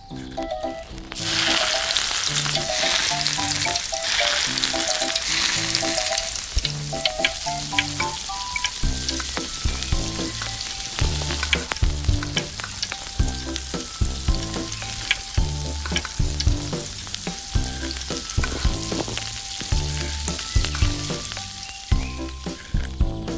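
Breaded pieces deep-frying in hot oil in a miniature steel kadai: a loud, steady sizzle that starts about a second in as they go into the oil, with light clinks of a slotted spoon against the pan as they are turned.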